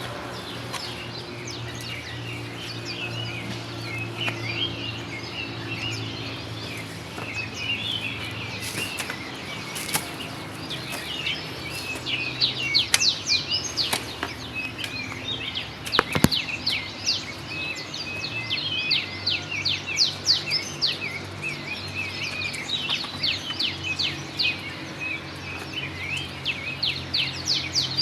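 Birds chirping and twittering in quick, busy series, denser in the second half, over a steady low hum, with a few sharp knocks about ten, fourteen and sixteen seconds in.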